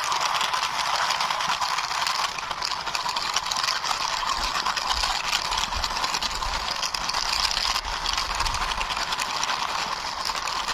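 Small toy car's wheels rolling and scraping along a rough wall surface, a continuous gritty crackle.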